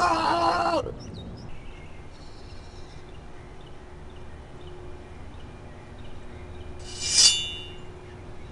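A person's loud, drawn-out wail at a steady pitch cuts off about a second in. Quiet outdoor background follows, with faint chirps, and a single short, shrill call about seven seconds in.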